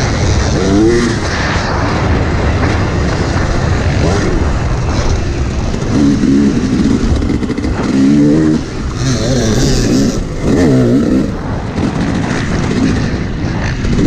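Dirt bike engine revving up and down as the rider works the throttle and shifts around the track, its pitch rising and dropping again and again, with wind noise rushing over the microphone throughout.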